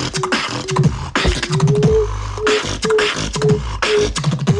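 Beatbox performance: sharp vocal kick and snare sounds over a low bass, with a short hummed note repeated at one pitch about twice a second.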